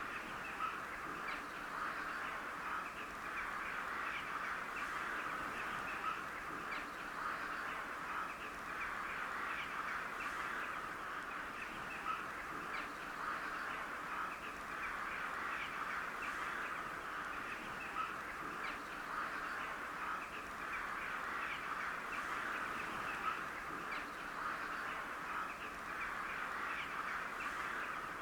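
A flock of crows calling continuously, many short harsh caws overlapping into a steady chatter with no break.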